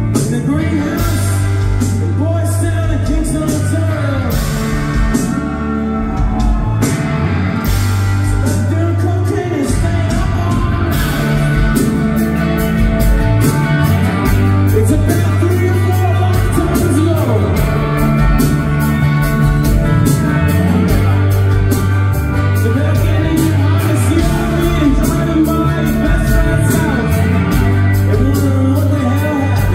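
Rock band playing live: a male singer's voice over strummed acoustic and electric guitars, bass and drums. About eleven seconds in, the cymbals take up a steady, driving beat.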